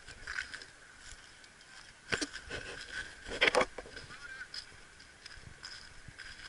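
Geese honking a few times, the loudest calls coming about three and a half seconds in.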